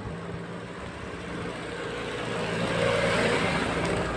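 A car driving past on an unpaved road: engine hum and tyre noise on the dirt and gravel grow louder to a peak about three seconds in, then fade as it goes by.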